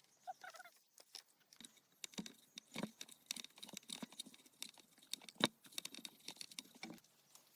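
Irregular light taps and clicks, with one sharper knock about five and a half seconds in.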